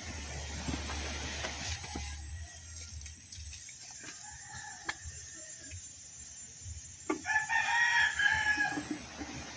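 A rooster crows once, loudly, about seven seconds in, after fainter calls around four seconds in. A few light knocks come from containers being handled.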